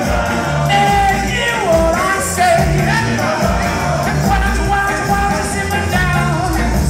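Live ska band playing: a horn section of saxophones, trumpet and trombone carries the melody over bass guitar, with singing.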